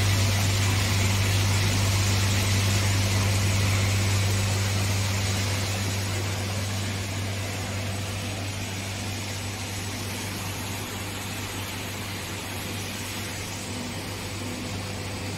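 Heat shrink tunnel running: a steady low electrical hum under an even hiss of blown air, easing somewhat quieter after about five seconds.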